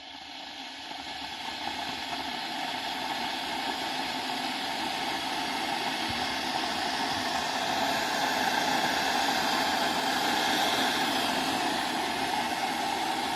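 Electric kettle heating water: a rushing hiss that grows louder over the first eight seconds or so and then holds steady as the water nears the boil.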